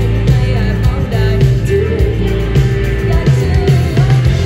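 Live pop-rock band playing through a PA: a singer's voice over electric guitar, electric bass and drums, heard from the crowd.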